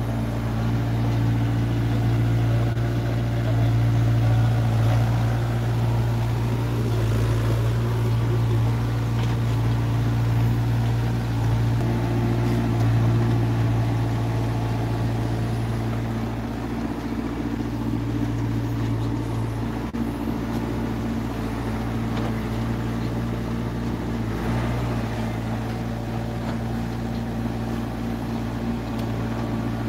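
Diesel engine of an HW60 wheeled excavator running steadily, its pitch shifting a little as the arm and bucket spread and level sand.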